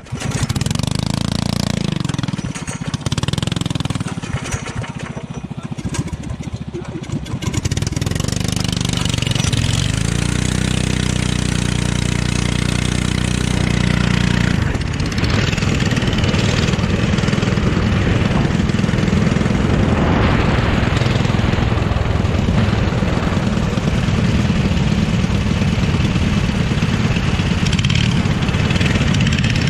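Go-kart engine heard close up from on board. It revs unevenly as the kart pulls away, climbs steadily in pitch under acceleration, dips briefly about halfway through, then runs hard and steady at high revs.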